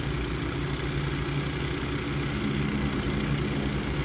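Several engine-driven water pumps running steadily at an overflow pond, a constant low engine hum that the neighbours call a racket.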